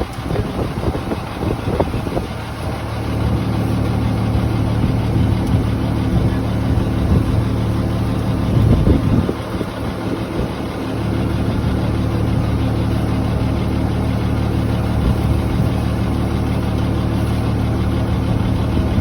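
Engine of a high-pressure jetting truck running steadily with a low, even hum, with some irregular rougher noise in the first few seconds and again around nine seconds in.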